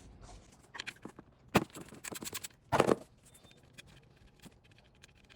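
Hand tools working on small nuts in an engine bay: a sharp metallic knock about one and a half seconds in, a quick run of clicks, then a louder scrape about three seconds in.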